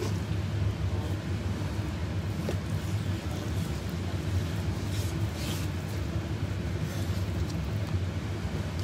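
A steady low mechanical hum with a rumble, with a few faint short scrapes of a knife cutting through raw beef on a plastic cutting board, the clearest about five and a half seconds in.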